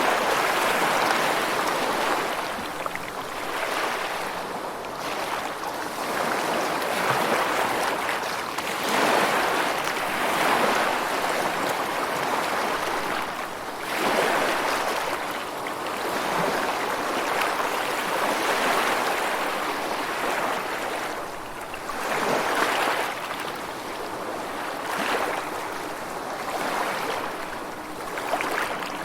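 Rushing water, a steady wash that swells and eases every two to three seconds, like surf or a fast stream, with no music or tones over it.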